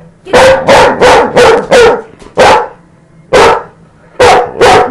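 A dog barking loudly in short sharp barks: a quick run of five in the first two seconds, then four more spaced about a second apart. It is frustrated demand barking at its owner for being kept off the bed.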